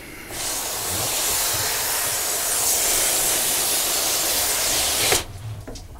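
Hose spray wand spraying water onto a fish-cleaning table to rinse it clean: a steady hiss that starts just after the beginning and cuts off suddenly about five seconds in.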